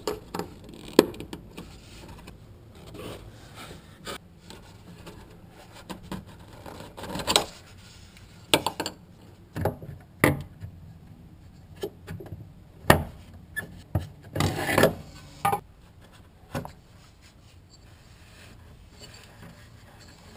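Scattered sharp plastic clicks and knocks with short bouts of scraping: fuel-line quick-connect fittings and an electrical connector on a fuel tank's sending unit being worked loose by hand and with pliers.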